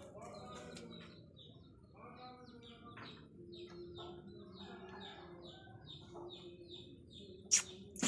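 A small bird chirping over and over, about two short, falling chirps a second. A single sharp knock near the end is the loudest sound.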